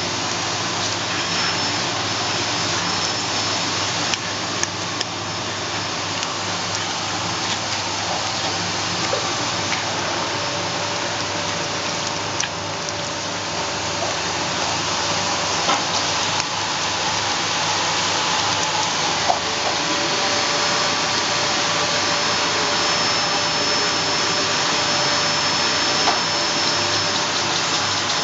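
A puppy chewing a raw chicken neck, with scattered faint clicks and crunches, over a loud steady rushing noise like a running appliance.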